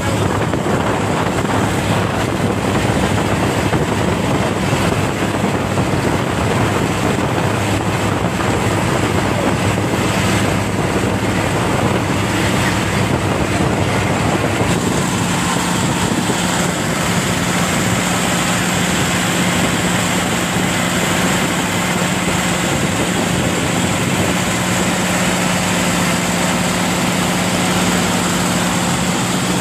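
Boat engine running steadily, its hum stepping up in pitch about halfway through as it speeds up.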